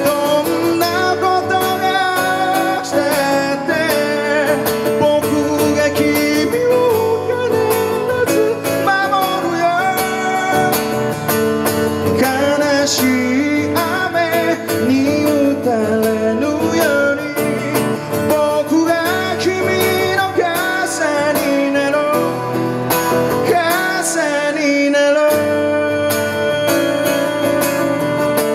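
A man singing a slow song while strumming an acoustic guitar, amplified live through a PA.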